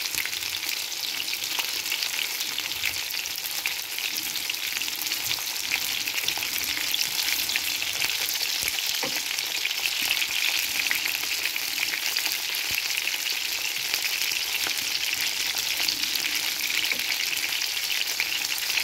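Beef köfte patties frying in oil in a pan: a steady sizzle with fine crackling. The patties are browned and nearly done.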